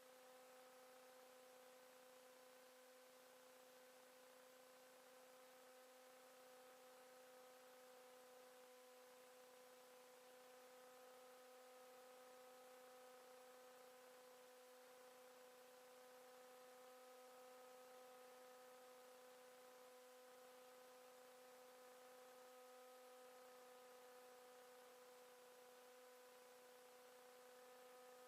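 Near silence: a faint, steady electrical hum of several even tones over hiss, unchanging throughout.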